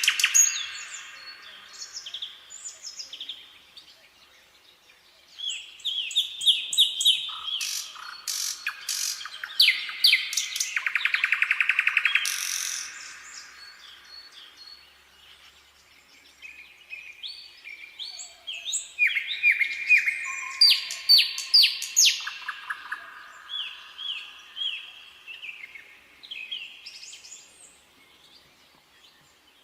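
Nightingale singing a series of varied phrases with short pauses between them. Several phrases are fast runs of repeated notes, at the very start and again about 11 seconds in.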